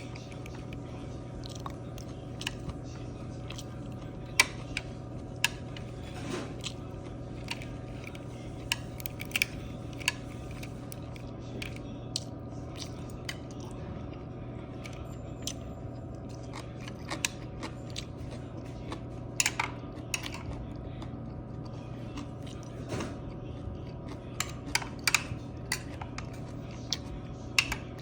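Close-up sounds of a person eating a boxed lunch: chewing and crunching with scattered sharp clicks, over a steady low hum.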